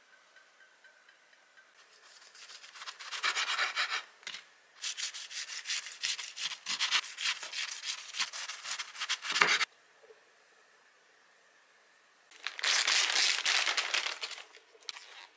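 Knife sawing through deep-fried gimbap on a wooden cutting board, crunching through the crisp fried coating in quick strokes for several seconds. After a short pause, a plastic food bag crinkles as it is handled.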